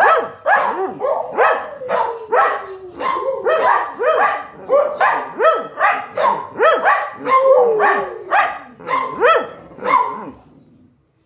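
Dogs barking excitedly in a fast run of about two barks a second, with a couple of longer calls that slide down in pitch. The barking dies away shortly before the end.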